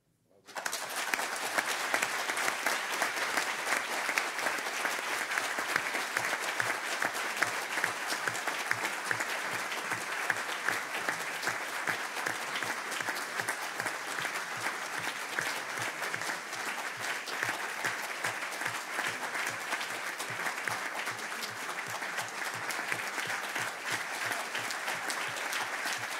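Audience applause: a large crowd clapping, bursting in about half a second in and holding steady throughout, as an ovation at the end of a speech.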